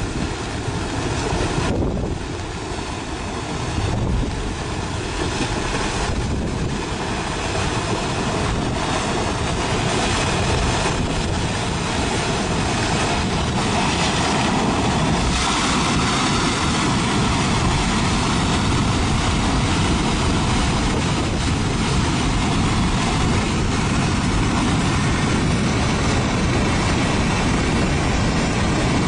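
Debris flow of mud and boulders rushing down a gully: a loud, continuous rumble of churning slurry and rock, growing a little louder and steadier about halfway through.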